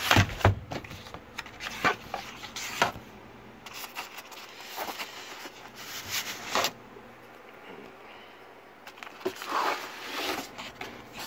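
Cardboard box packaging being handled: the flap opened and a styrofoam insert scraped and slid against the cardboard as it is worked out. Irregular rustles and scrapes, with a few sharp taps in the first three seconds.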